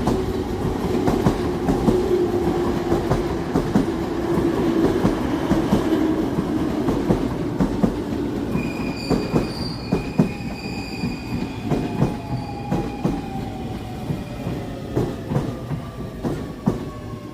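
JR East 209 series electric train pulling in and braking, its wheels clacking over the rail joints. In the second half its motor whine falls slowly in pitch as it slows, and a high brake squeal comes in for several seconds partway through.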